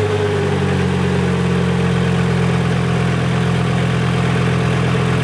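Volvo 850's 2.5-litre 20-valve inline five-cylinder engine idling steadily just after start-up, its speed easing down slightly in the first second and then holding even.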